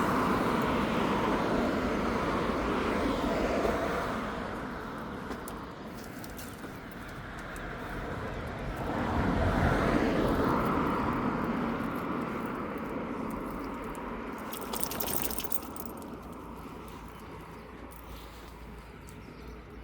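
Road traffic passing: one vehicle fading away over the first few seconds, then another swelling to a peak about ten seconds in and fading off.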